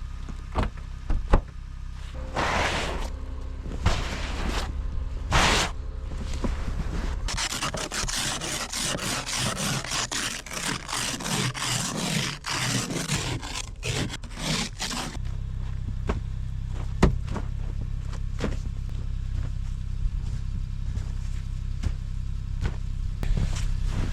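Snow being scraped and crunched: scattered single scrapes, then a dense run of continuous scraping from about seven to fifteen seconds in, then single scrapes again, over a low steady rumble.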